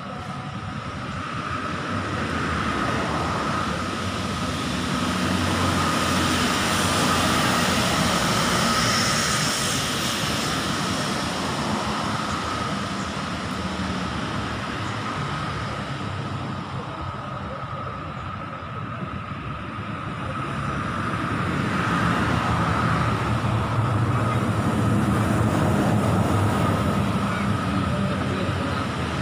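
Road traffic going past, a steady rush that swells twice as vehicles pass, with a faint steady high tone running through it.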